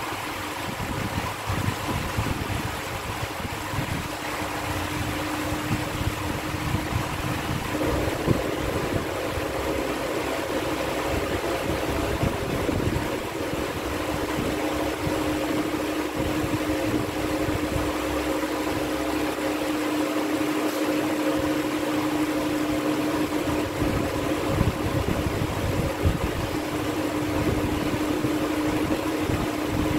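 Steady mechanical hum with a held droning tone that grows stronger after about eight seconds, like a running fan or motor.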